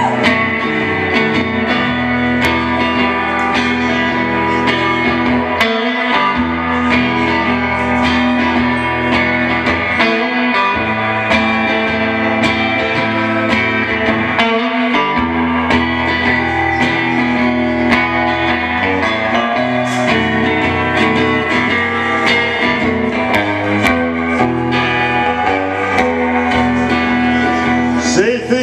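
Solo electric guitar played through a small combo amplifier, a punk-blues instrumental break with a steady run of picked and strummed notes and no singing.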